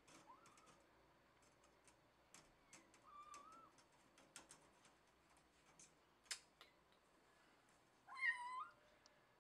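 Domestic cat meowing three times: two faint short meows early and a few seconds in, then a louder, wavering meow about eight seconds in. Scattered light clicks and taps fall between the meows.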